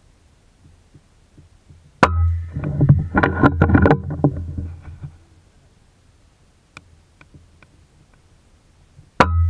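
FX Impact MK2 PCP air rifle fired twice, about seven seconds apart; each shot is a sharp crack with a short ringing tail. The first shot is followed by a few seconds of clicking and rattling from handling the rifle.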